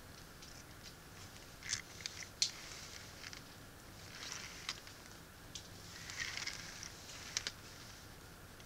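Plastic Transformers toy figures, a Tarn tank and an Optimus Prime truck, handled and shifted on a cloth: faint scattered plastic clicks with short soft rustles.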